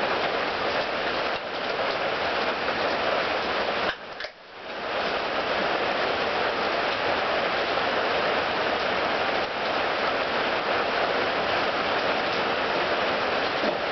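Steady rain falling, a constant hiss, with a brief drop in level about four seconds in.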